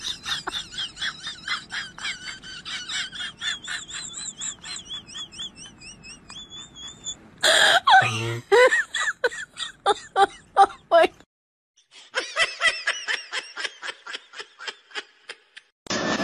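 Someone laughing hard, a high-pitched, rapid string of ha-ha pulses, broken off and picked up again several times with a short silence about eleven seconds in.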